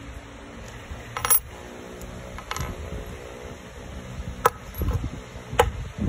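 Metal clicks and clinks from a steel multitool and a loose metal pin being handled: about four sharp strikes, the first two leaving a brief ring, with dull handling thuds in between.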